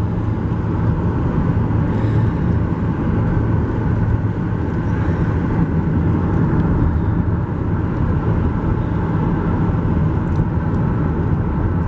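Car engine and road noise heard from inside the cabin: a steady low drone with no breaks.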